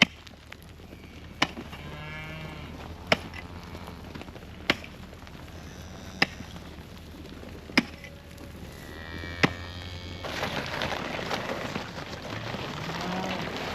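Ice over a cattle water hole being chopped open, seven sharp strikes about every second and a half, with cows mooing in between.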